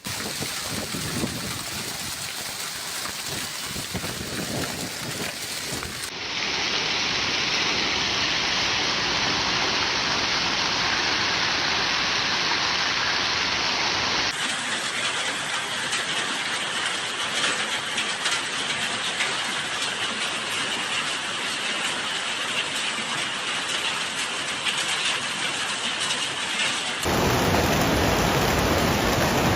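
Heavy storm downpour pelting surfaces with a dense, steady hiss, in several spliced recordings that change abruptly about 6, 14 and 27 seconds in.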